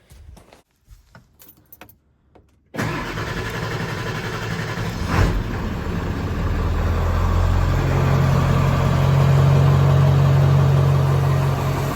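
John Deere 4020 tractor engine, hard to start, catches suddenly about three seconds in after a few small clicks. It then runs, with a single knock a couple of seconds later, and settles into a steady idle that grows stronger near the end.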